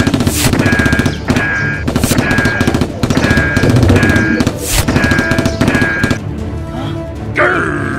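Background music with a fast, rattling beat and a short riff repeating about twice a second; it thins out about six seconds in.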